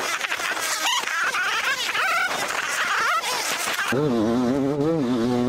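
Yamaha YZ 250 dirt bike engine revving up and down while riding a rough dirt track, with knocks over the bumps. About four seconds in it settles into a steadier, slightly wavering note.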